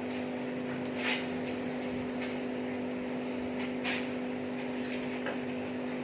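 Short, crisp mouth noises of someone eating, four of them, loudest about a second in and again near four seconds, over a steady low electrical hum.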